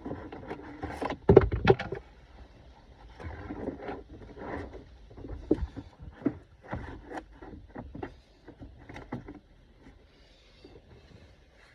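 Cabin air filter being worked into its plastic housing behind a car's glove box: irregular scraping, rustling and sharp plastic clicks and knocks, the loudest two knocks about a second and a half in, growing sparse near the end.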